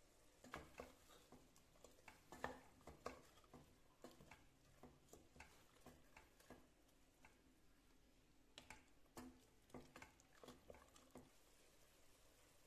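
Wooden spatula stirring mutton pieces and spices in a stainless steel pressure cooker: light, irregular taps and scrapes against the pot.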